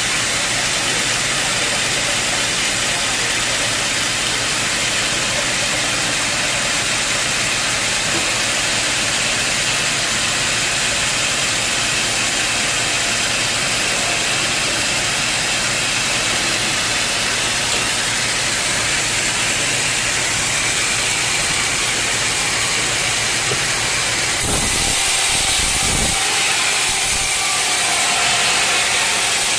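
Sawmill saw running with a loud, steady, hissing noise while sawing teak logs; the sound changes and becomes fuller about 24 seconds in.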